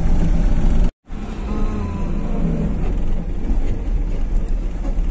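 Engine rumble and road noise inside the cabin of a moving vehicle on a dirt track. The sound drops out for a moment about a second in, then carries on a little quieter.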